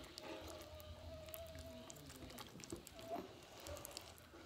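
Homemade glue slime being kneaded and pressed with the fingers, giving faint, sticky clicks and squelches.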